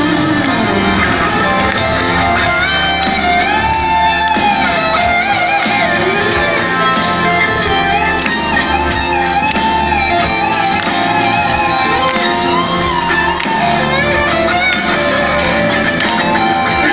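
Live rock band playing, led by an electric guitar line of bent, wavering notes over drums and bass, with no vocals. It is heard from the crowd through a phone microphone.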